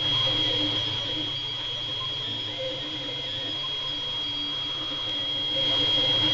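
FDM 3D printer at work: a steady high whine from the print head's cooling fans over a low hum, with the stepper motors sounding short changing tones as the head moves across the layer.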